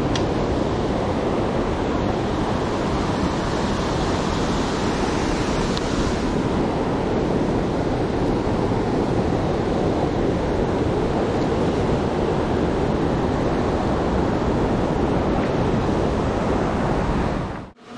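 Steady, loud rush of a fast-flowing rocky river heard close to the water, cutting off suddenly near the end.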